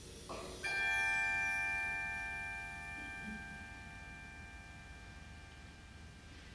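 Tubular bells (orchestral chimes) struck once about half a second in, the tone ringing on and slowly dying away over the following seconds in a quiet passage of concert-band music.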